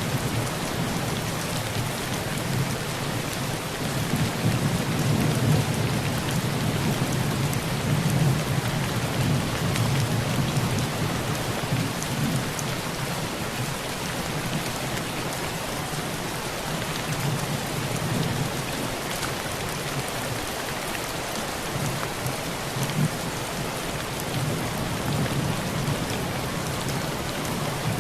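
Heavy rain pattering steadily on a rusty tin roof, with thunder rumbling low underneath, swelling and fading several times.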